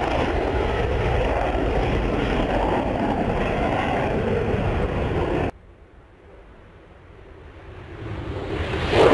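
F-16 fighter jet flying low, its jet noise a loud, even rush that cuts off abruptly about five and a half seconds in. After a lull, the jet noise builds again and peaks sharply near the end.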